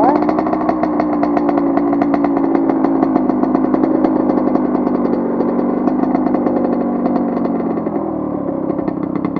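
80cc two-stroke dirt bike engine running under throttle. It revs up sharply at the start, holds a fairly steady pitch, then eases off about eight seconds in.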